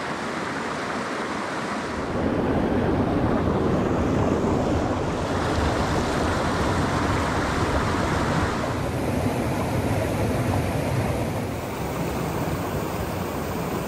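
Rushing mountain stream cascading over granite boulders: a steady loud wash of whitewater that grows louder and deeper about two seconds in.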